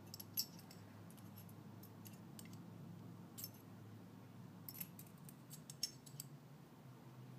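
Faint, scattered light metallic clicks and taps of AR-15 bolt carrier parts handled as the firing pin is slid into the bolt carrier, with a cluster of clicks about five to six seconds in.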